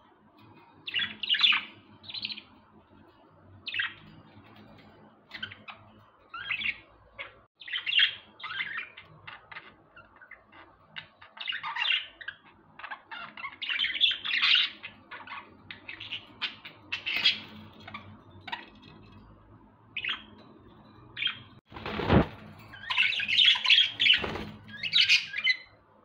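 Exhibition budgerigars chirping and chattering in short, repeated bursts of high calls. Near the end there are two sharp knocks about two seconds apart.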